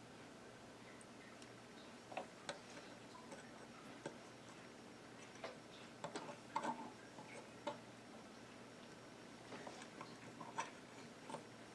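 Faint, irregular clicking of small plastic building bricks being handled and snapped together on a model droid. The clicks come in loose clusters, busiest around the middle and again near the end.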